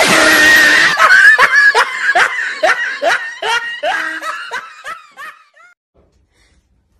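A man laughing hard in a run of repeated falling "ha" bursts, about two or three a second, that fade away over about five seconds.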